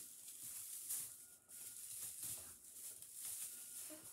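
Soft, irregular rustling of the plastic needles on a white artificial Christmas tree's branches as a tree section is handled and fitted together.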